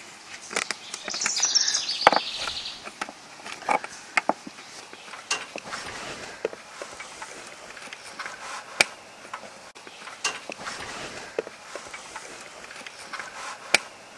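Scattered clicks and taps of hand work on an RV's side wall, with a sharp snap about two seconds in: the old camera being pulled off its sealant-bedded mount, then pliers working at the camera wire in the mounting hole.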